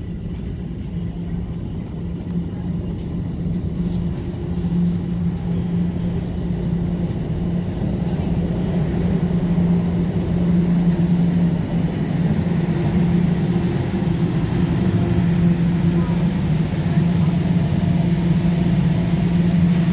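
Toronto subway train on TTC Line 1 running on the rails: a steady low hum under a wash of rail and running noise, growing gradually louder.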